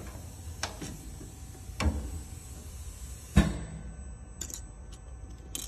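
Three separate knocks a second or so apart, the third the loudest, then a run of light clicks near the end: cut PCB panels and small round boards being handled on the router's metal table, over a steady low machine hum. The router's spindle is not heard cutting.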